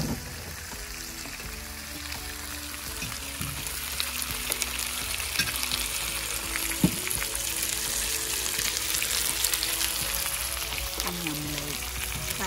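Pork belly, beef short ribs, vegetables, tofu and noodles sizzling in hot fat on an electric Korean BBQ grill pan, a steady hiss with crackling pops that grows louder a few seconds in, and one sharper pop about halfway through.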